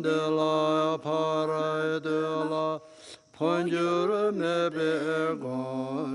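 Male Buddhist chanting of a mantra, sung in long held notes on a steady low pitch with a few gliding turns, pausing briefly twice for breath.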